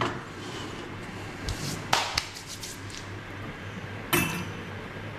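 Metal clicks and knocks of a portafilter being twisted and locked into the group head of a stainless-steel espresso machine, loudest about two seconds in, then a ceramic cup set down with a clack on the metal drip tray grate about four seconds in.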